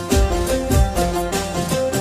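Background devotional folk-style music: a melody of short stepped notes over a steady drum beat.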